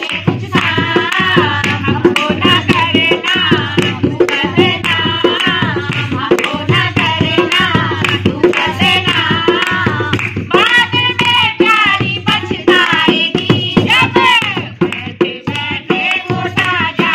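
A group of women singing a Pahari folk song, with a dholak drum beating a steady rhythm and hands clapping along.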